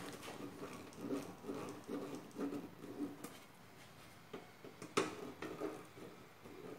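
Faint scraping and light clicks of a screwdriver and screw working against an AT computer case's sheet-steel motherboard tray, as a screw that is not tightening is tried in its hole. One sharper click comes about five seconds in.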